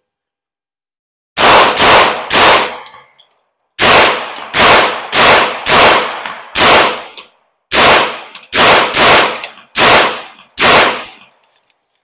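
Semi-automatic .22 WMR (22 Magnum) rifle built on a Bear Creek Arsenal AR-15 upper, firing about fourteen shots in three quick strings of three, five and six. The shots come roughly two a second, starting a little over a second in.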